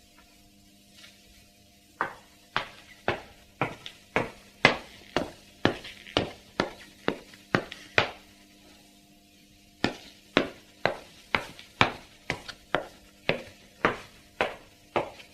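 Footsteps of leather-soled dress shoes (pantofel) walking on a hard indoor floor: sharp heel clicks about two a second, starting about two seconds in, pausing for a couple of seconds near the middle, then starting again, over a faint steady hum.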